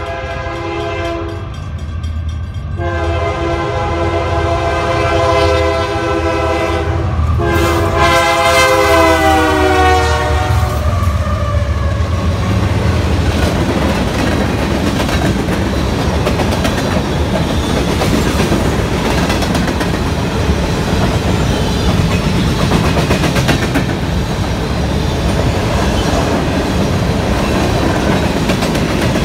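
Diesel freight locomotive's horn sounding a chord in three blasts, the last one long, its pitch dropping as the locomotive passes, over the low drone of the diesel engines. After about eleven seconds the horn stops and the steady rumble and clickety-clack of covered hopper cars rolling by on the rails takes over.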